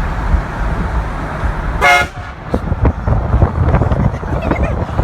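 One short blast of a car-mounted train horn about two seconds in, lasting about a third of a second, over the steady low rumble of the car.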